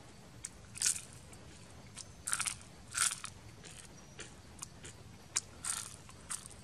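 Close-up chewing of grilled water snake: a handful of crisp crunches at irregular intervals, with small wet clicks of the mouth between them.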